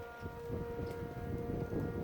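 Outdoor civil defense warning siren sounding a steady tone made of several pitches, with low, gusty noise underneath.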